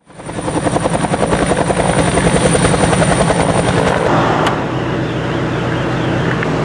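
Helicopter rotor chop, a fast, even beat with a thin high whine over it; about four seconds in the beat and whine drop away, leaving a steadier hum.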